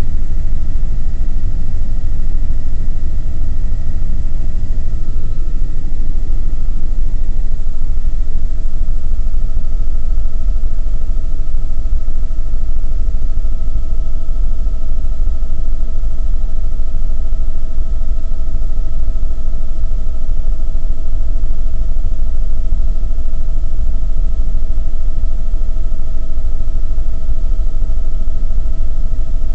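Helicopter engine and rotor noise heard from inside the cabin in flight: a loud, steady low rumble with a steady whine on top.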